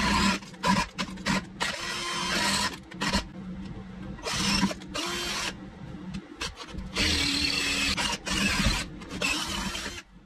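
Cordless drill boring through a steel pipe, the motor and bit running in short stretches of a second or two and stopping between them.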